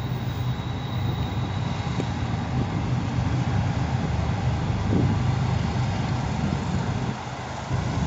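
Steady low rumble of an approaching freight train's lead GE Evolution-series diesel locomotives (an ES40DC and an ES44AH) running toward the crossing.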